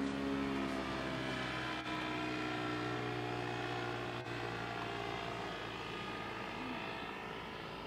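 Paramotor's small engine and propeller droning steadily as it flies low overhead, its pitch easing down slightly as it passes and the sound fading a little toward the end. Two faint clicks come through partway.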